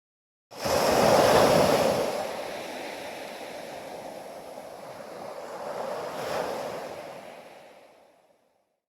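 Ocean waves breaking: a sudden loud rush of surf that eases off, swells again about six seconds in, then fades away to silence.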